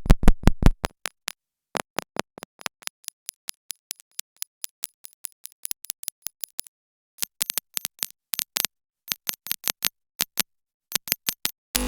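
Synthesized electrical spark crackle made with the Massive software synthesizer: irregular sharp clicks and snaps, dense in the first second, then coming in scattered clusters with short gaps. A steady electrical buzzing hum starts right at the end.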